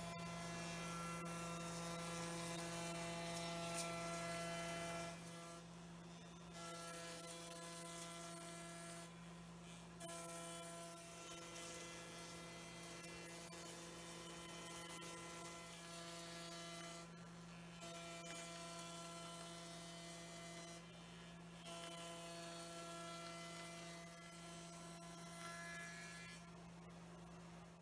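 Faint steady electrical hum with several held tones stacked above it. The upper tones break off briefly every few seconds.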